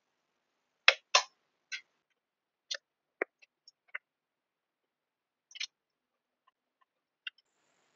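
A scattered series of short, sharp taps and rustles, about ten in all at uneven spacing, the two loudest close together about a second in.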